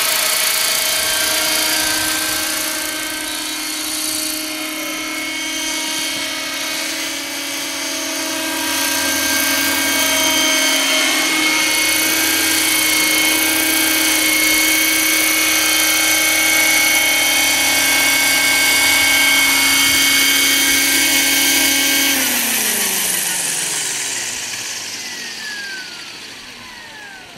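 Electric radio-controlled scale Lama helicopter flying: a steady multi-tone whine from its electric motor, gears and rotor, wavering in pitch early on as it manoeuvres. About 22 s in the motor is cut after landing, and the whine slides steadily down in pitch and fades as the rotor spins down.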